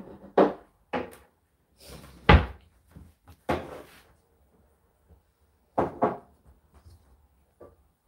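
A tumble dryer's plastic lint filter being handled at the open door, making an irregular series of plastic clacks and knocks, the loudest about two seconds in, with quiet gaps between them. The dryer itself is not running.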